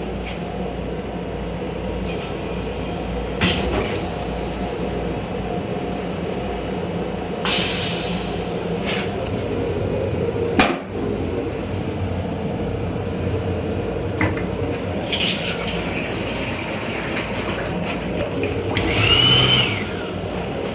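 The toilet in an M7 railcar's restroom flushing, with rushes of water, over the steady running hum of the moving train. A few sharp clicks and knocks come through, and the loudest rush, with a short rising-and-falling whistle, comes near the end.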